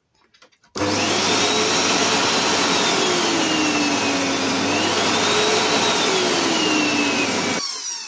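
Severin 1300 electronic canister vacuum cleaner switched on about a second in, its 1300 W motor running with a steady rush of air. The motor's pitch dips and rises again as the suction control knob is turned, then it is switched off near the end and winds down with a falling whine. It runs normally without tripping the breaker.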